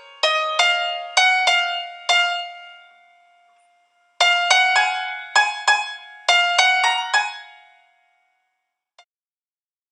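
Light instrumental background music: a simple melody of single plucked, chiming notes, each ringing out and fading. It plays in two short phrases with a brief pause between them about three seconds in, then dies away about eight seconds in.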